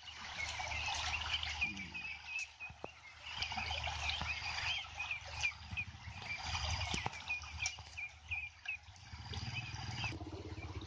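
A flock of two-month-old domestic ducks calling all at once, many short high peeping calls overlapping throughout.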